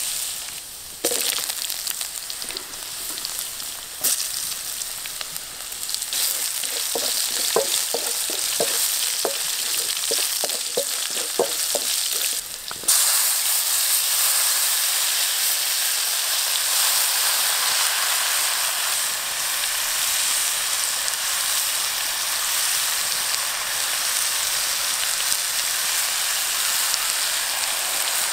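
Food sizzling in hot oil in a wok over a wood fire. In the first half a spatula stirs and knocks against the pan in quick strokes. About halfway through, the sizzle turns louder and steadier.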